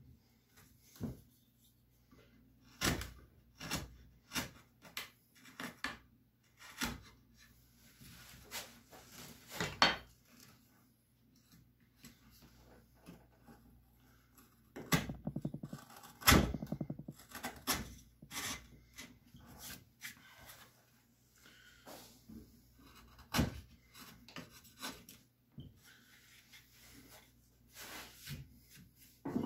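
Hand wood chisel paring and scraping wood out of a cavity in a bass guitar body, working across the grain: irregular clicks, cracks and scrapes, with a busier run of strokes a little past the middle.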